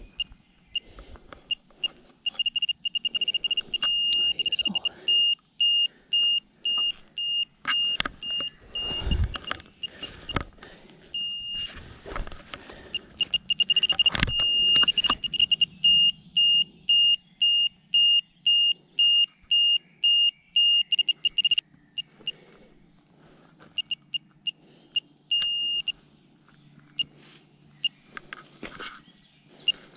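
Radiation dose rate meter (automess, with external probe) giving its audible count signal: short, high-pitched beeps at an irregular, fast rate that at times run almost together and later thin out to scattered single beeps. Each beep marks a detected radiation pulse. A few knocks from handling the probe and cable are mixed in.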